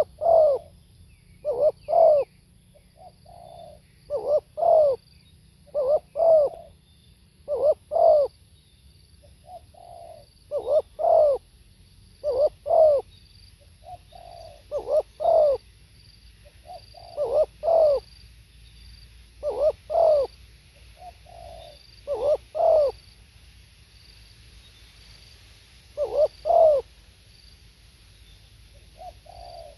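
Spotted dove cooing over and over: loud two-note coos about every two seconds, with softer coos between them. Faint high chirps repeat in the background.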